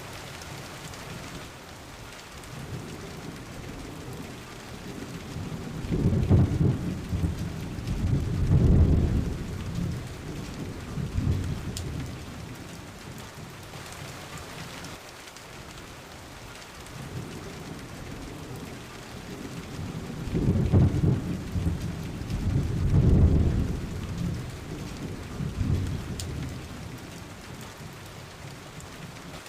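Steady rain falling, with two long low rolls of thunder, the first about six seconds in and the second about twenty seconds in, each swelling twice before it fades.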